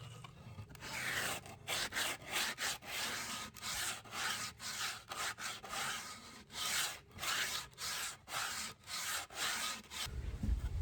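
Sandpaper rubbed by hand back and forth along wooden boards, in steady, even strokes about two a second.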